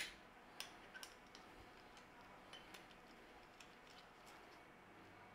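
Near silence with a few faint, scattered clicks from handling a meat injector as it is readied to inject brine.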